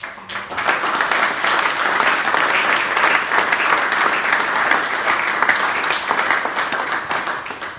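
Audience applauding, starting suddenly and tailing off near the end.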